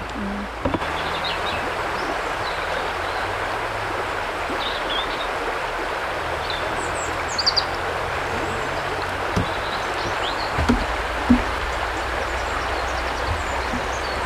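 A river flowing steadily, a constant rush of water, with a few short high chirps scattered through it.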